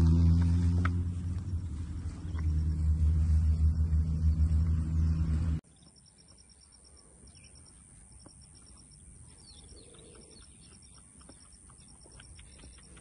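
A loud low droning rumble that cuts off suddenly about five and a half seconds in, followed by quiet pasture ambience: birds chirping in quick repeated runs over a thin, steady high tone.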